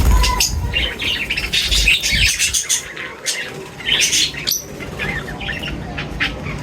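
Several birds chirping and squawking in quick, overlapping calls, with a couple of low thumps in the first two seconds.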